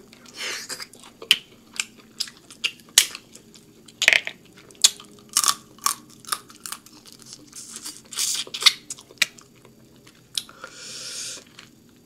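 Mouth sounds of eating seafood boil: wet lip smacks and chewing in quick irregular clicks, with a few longer slurps and finger-sucking.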